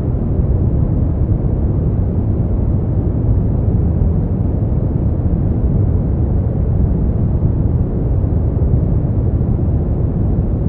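Brown noise: a steady, deep rushing hiss, strongest in the bass and dull in the treble, with no change throughout.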